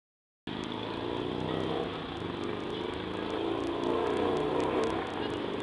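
Brief dead silence, then an abrupt start into steady outdoor noise with a motor vehicle engine running, its pitch drifting up and down.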